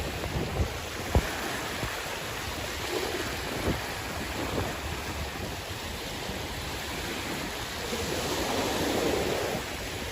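Sea waves washing in, a steady rush of surf that swells louder near the end as a wave comes in. A few short low thumps sound in the first few seconds.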